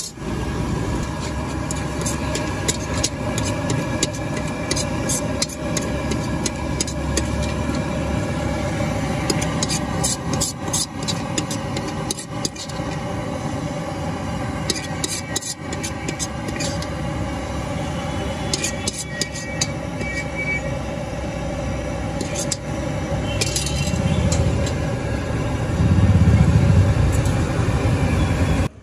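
Steady street traffic, with a steel ladle scraping and clinking against a steel kadai now and then as noodles are scooped out. A low rumble swells near the end.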